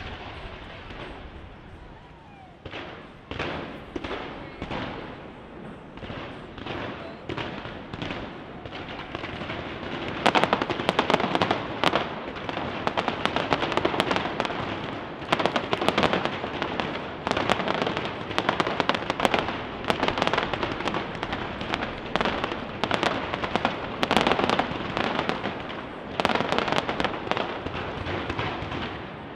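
Fireworks display: scattered bursting reports at first, then about ten seconds in a dense, rapid barrage of bangs and crackling that keeps up to the end, the closing finale of the show.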